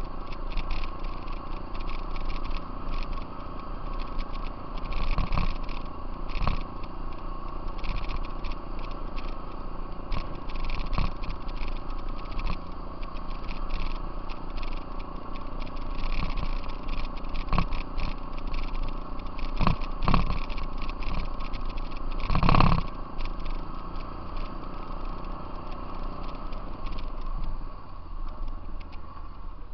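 Off-road vehicle riding along a gravel trail: the engine runs with a steady drone while the frame and gear rattle and knock over the bumps, with one heavy jolt about three-quarters of the way through.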